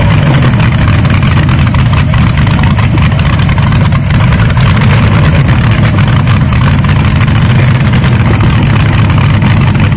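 Ferguson-bodied pulling tractor's multi-cylinder engine with open stacks running loud and steady, with a fast, rough exhaust pulse.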